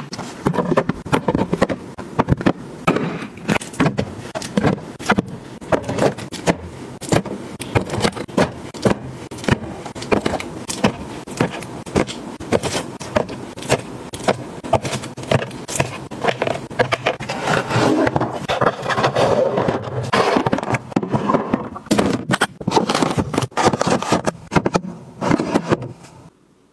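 Tins and small cartons being set down and slid into plastic organizer bins: a quick run of taps, clicks and scrapes against hard plastic, which stops abruptly near the end.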